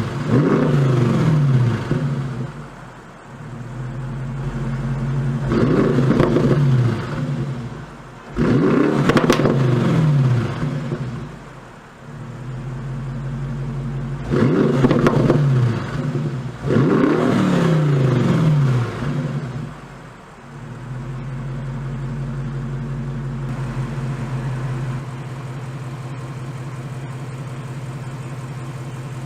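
Bentley Continental GT3-R's 4.0-litre twin-turbo V8 with an Akrapovic titanium exhaust being revved in short blips, about five times, each rising quickly and falling back, with a steady idle between. From about twenty seconds in it settles into a steady idle.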